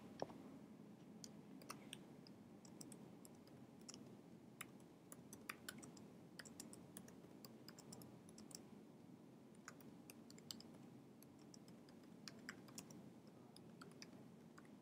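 Faint typing on a computer keyboard: irregular key clicks over a low room hiss.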